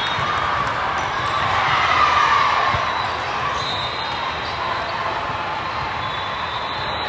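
Echoing din of a large hall full of indoor volleyball courts: a steady mix of many voices from players and spectators, with scattered ball hits and thuds. The noise swells briefly about two seconds in.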